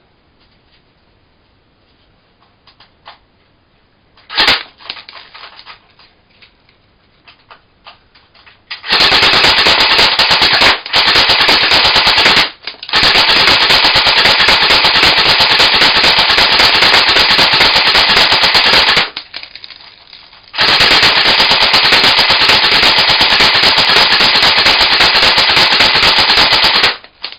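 M4 airsoft rifle firing on full auto: one shot about four seconds in, then four long bursts of rapid fire, the last two about six seconds each, separated by short pauses.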